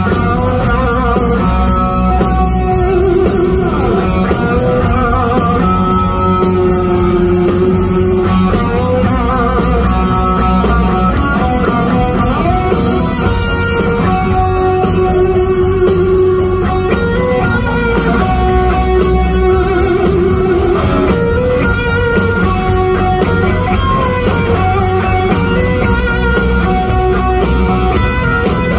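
Live rock band playing loudly, an electric guitar carrying held melodic lines over a steady drum beat and bass, with no clear singing. Recorded on a phone in an arena.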